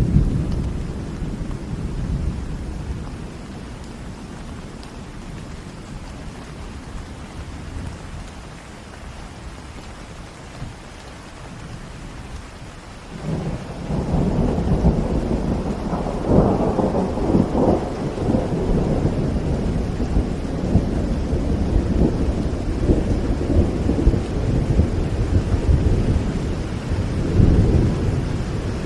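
Steady rain with thunder. A low rumble dies away over the first few seconds. About halfway through, a louder rolling rumble of thunder builds and goes on in repeated surges.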